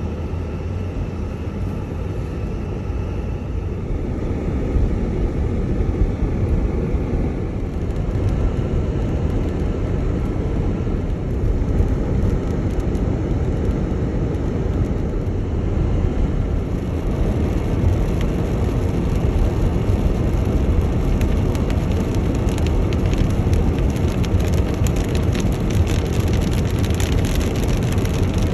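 Steady road and tyre noise inside a moving car, a low rumble. From about halfway on, rain patters on the windshield and roof and grows denser toward the end.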